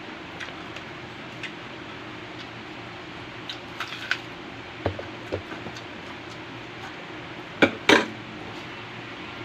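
Cutlery clinking against a plate while eating: scattered light clicks, two duller knocks about halfway through, and two sharper clinks close together near the end.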